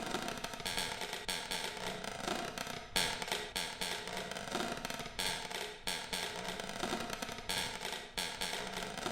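Church bell swinging freely, its clapper striking about once a second, with the bell's tone ringing on between strikes.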